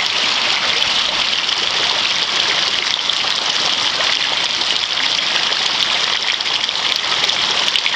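Steady rain, an even, unbroken hiss.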